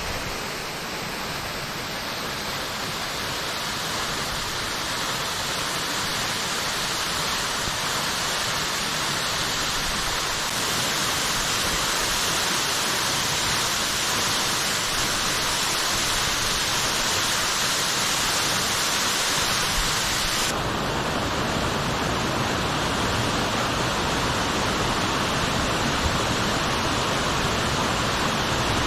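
Waterfall plunging, a steady rush of falling water. About two-thirds of the way through the sound turns deeper, with more low rumble and less hiss.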